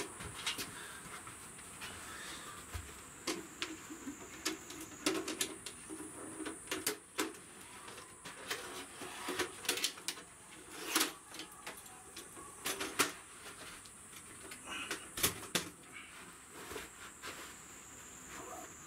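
Scattered clicks and knocks of camping gear being handled: a small metal-legged folding table being unfolded and set down, and a gear bag being moved, over a steady high hiss.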